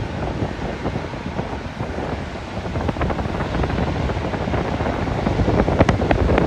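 Wind buffeting the microphone in gusts, a heavy rumbling rush that grows a little louder near the end.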